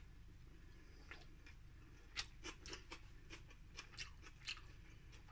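A person chewing a mouthful of sandwich topped with mushroom salad: faint, irregular soft crunches and mouth clicks.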